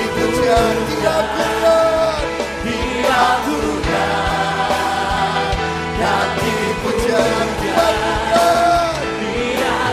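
Live gospel worship music in Indonesian: a man sings lead into a microphone over a band with drums.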